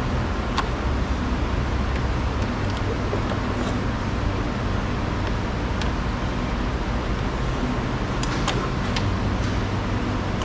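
A few light plastic clicks, a small cluster of them late on, as the wiring connectors behind a car's door trim panel are unclipped, over a steady low background rumble.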